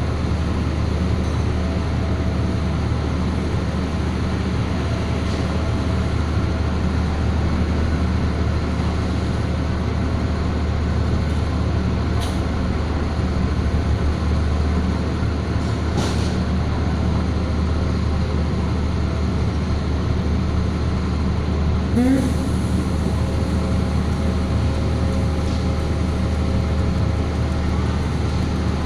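A heavy engine running steadily with a low, even drone, broken by a few brief sharp clicks or knocks about twelve, sixteen and twenty-two seconds in.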